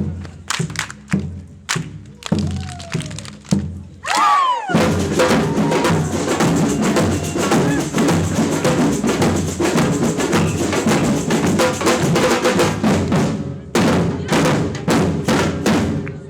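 Batucada-style samba drum group playing. Spaced single drum strokes lead in, then the whole band comes in about four and a half seconds in with a dense, driving rhythm, which breaks off into a few last separate strokes near the end.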